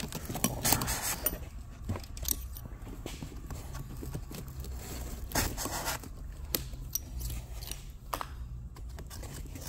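Steel push rods being handled in a cardboard holder: the cardboard crunches and scrapes as rods are pushed into and pulled from their holes, with several sharp clicks and knocks scattered through.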